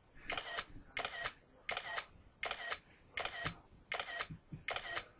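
iPad camera shutter sound played by the iMotion HD stop-motion app, a short two-part click repeating evenly about every 0.7 s, once for each frame the app captures automatically.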